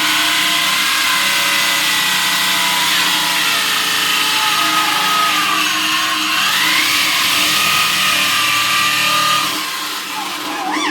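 Electric drill running under load while boring a hole, its pitch wandering a little as the bit cuts, then cutting off near the end.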